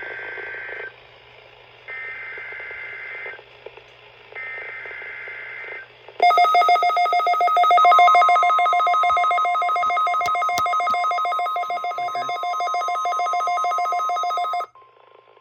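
NOAA Weather Radio test alert signals. First the SAME digital header: three short two-pitch data bursts of about a second each, with gaps between. Then a loud, rapidly pulsing electronic alarm, with the steady 1050 Hz weather-radio alert tone under it that carries on after the alarm cuts off near the end.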